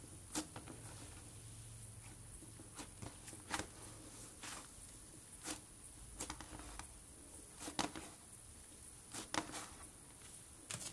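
Hands squeezing and pressing thick slime, giving soft squelches with irregular sharp little crackles and pops as air pockets in the slime burst.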